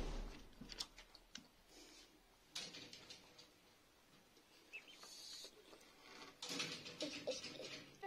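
Young chickens pecking and drinking at a plastic bottle-drinker dish: faint scattered taps and soft rustles, with one short chick peep about halfway through.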